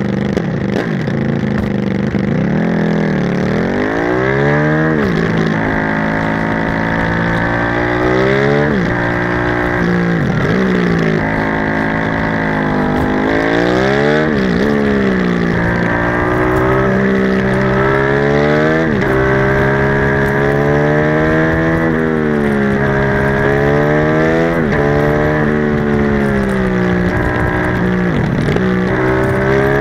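Aprilia motorcycle engine idling in neutral, then pulling away, its pitch repeatedly climbing under acceleration and dropping back as the bike rides through a series of bends. Wind rushes steadily underneath.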